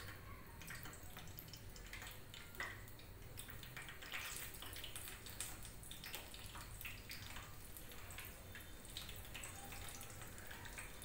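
Besan-battered potato slices deep-frying in hot oil in a kadhai: a faint, steady sizzle with scattered small crackles.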